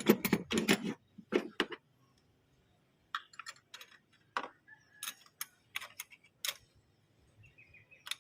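A string of sharp, irregular clicks and knocks from small hard objects, a few louder ones close together in the first two seconds, then about ten lighter ones spaced unevenly.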